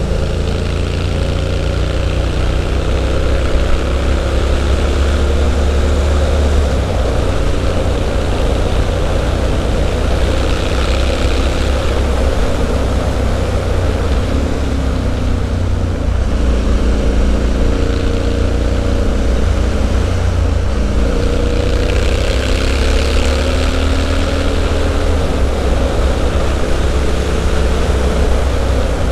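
Triumph Street Scrambler's 900 cc parallel-twin engine through an aftermarket Zard exhaust, under way on the road. The revs rise and fall several times as the bike accelerates and shifts, over a strong low exhaust note.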